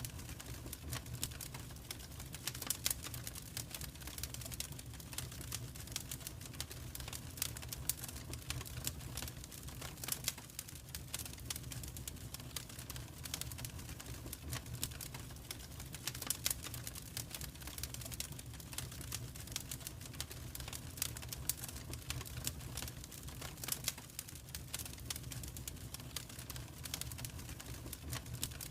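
Wood fire in a fireplace crackling and popping: irregular sharp snaps over a steady low rumble of the burning logs.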